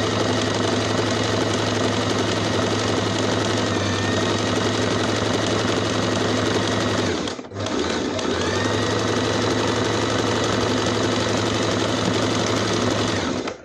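Electric domestic sewing machine running at a steady speed, stitching a seam in fabric. It stops briefly about halfway through, starts again, and stops near the end.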